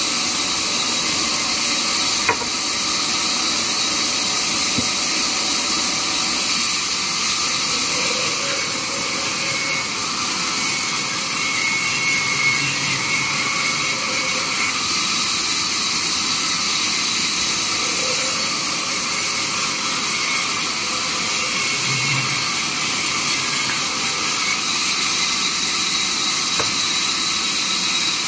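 Large vertical band saw running and ripping planks as they are fed through the blade, a steady high hiss of the blade cutting wood.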